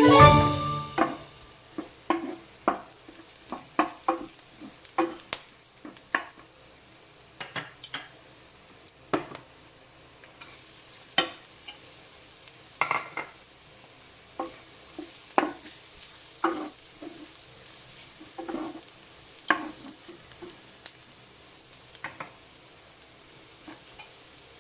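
A spatula scraping and knocking against a pan in short strokes, every half second to second and a half, while stir-frying, with a faint sizzle of frying underneath.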